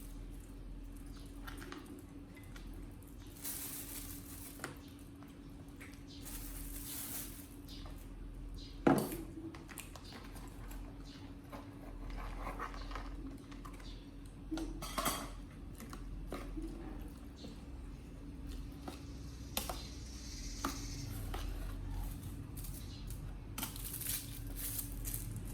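Plates and dishes being handled, clinking and knocking now and then, with one sharp knock about nine seconds in and a few more around fifteen seconds, over a steady low hum.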